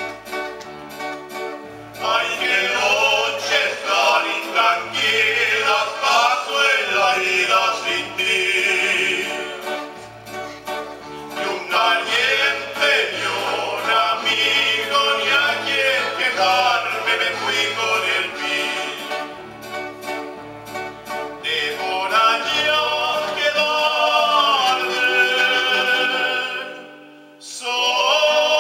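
Male vocal trio singing a slow song in harmony, accompanied by keyboard and acoustic guitar. The music falls away briefly near the end, then the voices come back in.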